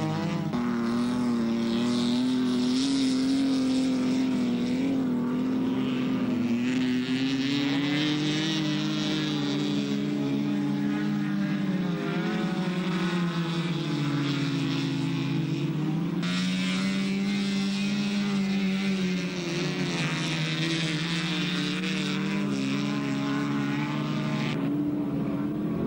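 Several race car engines running hard on an ice track, their pitch rising and falling as the cars accelerate and lift, with a steady hiss over them.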